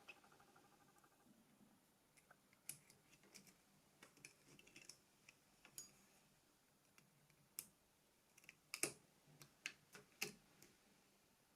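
Sparse, faint clicks and taps of small plastic and metal phone parts being handled and fitted together during reassembly, the loudest a quick cluster about nine seconds in.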